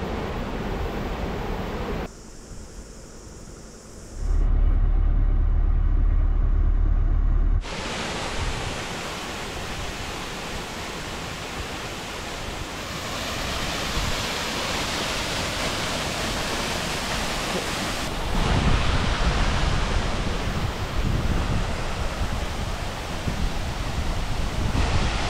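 Storm noise: a steady rushing of wind and water, in several cut-together stretches. About four seconds in there are a few seconds of loud, low wind rumble on the microphone.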